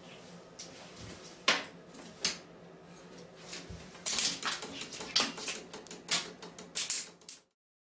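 A cat's claws scrabbling and its body sliding and bumping against the sides of an empty bathtub as it rolls and twists. The result is a string of irregular scratchy scrapes and clicks, a few at first and a busy flurry in the second half, which cuts off abruptly near the end.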